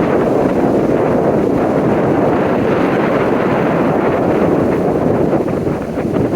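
Loud, steady typhoon wind buffeting the microphone, over storm surf breaking on the shore.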